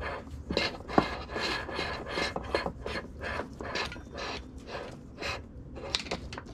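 A rubber-jacketed power cord being handled and rubbed against a metal cable-exit fitting and plywood: repeated scraping strokes, about two to three a second, with a sharp click about a second in.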